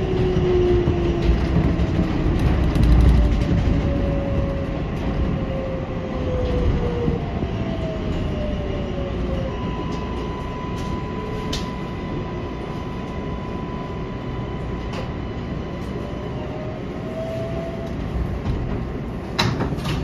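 R188 subway train running, heard from inside the cab: a steady low rumble of the car on the rails with the electric propulsion's gliding whine, its pitch sliding down at first and rising again later. A few sharp clicks come through, the clearest near the end.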